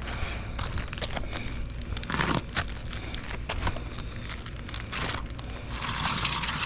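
Roof shingles being handled: irregular scraping, crinkling and light tapping, with a longer rasping scrape about two seconds in and another near the end.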